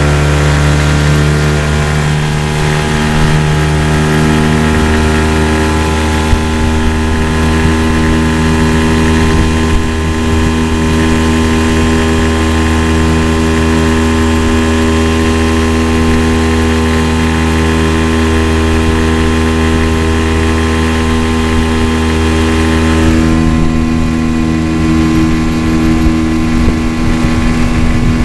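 Small Mercury tiller outboard motor running steadily with the boat under way.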